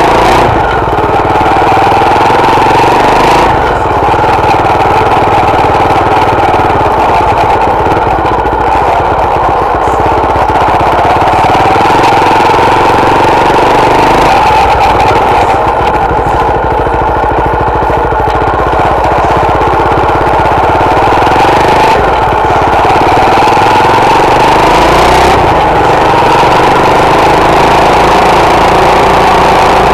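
Honda Tornado 250's single-cylinder four-stroke engine running under way, heard close up from a camera mounted low on the motorcycle by the footpeg. Loud and steady, with small rises and falls in engine speed.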